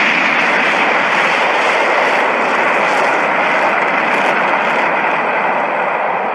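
Kaiju sound effect from Daiei's Gamera library: a loud, steady rushing blast with no pitch to it, of the kind used for the monster's flight or flame breath, beginning to fade near the end.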